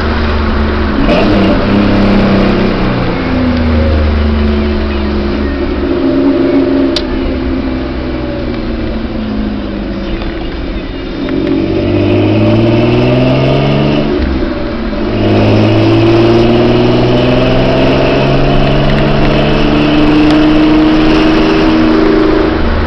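Ford Ranger's 2.9L V6 running through a Flowmaster 40 muffler while driving, its exhaust note rising in pitch under acceleration, dropping sharply at a gear change about fifteen seconds in, then holding steady at cruise.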